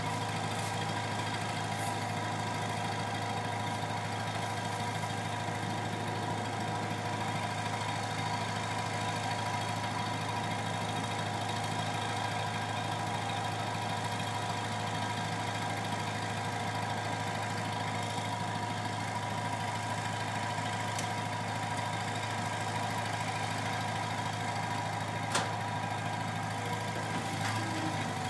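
Bobcat skid-steer loader's engine idling steadily at an even pitch, with one brief sharp click near the end.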